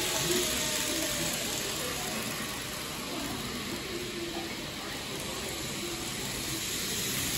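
N gauge model trains running on a shop layout: a steady hissing whir of motors and wheels on the track.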